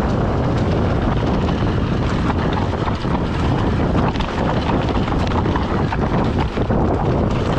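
Wind buffeting the microphone and tyre rumble from a mountain bike descending a rocky trail, with a steady run of small clicks and knocks as it rattles over loose stones.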